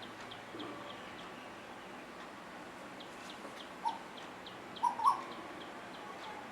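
Asian koels giving short calls: one about four seconds in, then a louder pair a second later. A faint run of quick, high ticking notes comes in twice.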